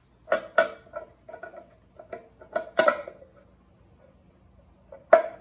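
Sheet-metal timing chain cover of a Triumph TR6 engine clinking and knocking against the engine front as it is worked into position by hand, fitted dry without its gasket. A string of sharp metallic knocks with a short ring, the loudest about three seconds in and near the end.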